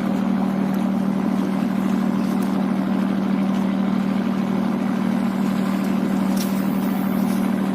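A small engine running steadily on the fishing boat, a constant drone with a strong low hum. A brief faint hiss comes about six and a half seconds in.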